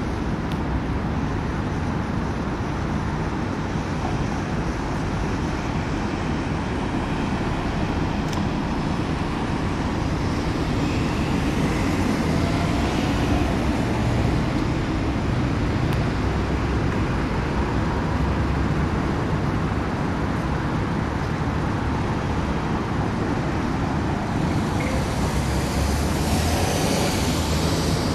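Steady city road traffic noise, vehicles passing continuously at street level.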